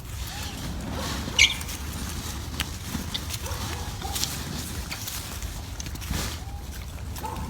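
Monkeys giving short, faint squeaky calls, with scattered clicks and rustling and one sharp, louder squeak about a second and a half in.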